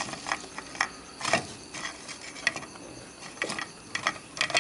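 Irregular crisp crackles and clicks from crunchy deep-fried chicken rib-frame pieces being picked over on a plate, with crickets chirring steadily behind.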